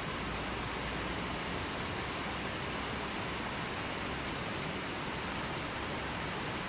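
Running water rushing steadily, an even hiss without breaks or changes.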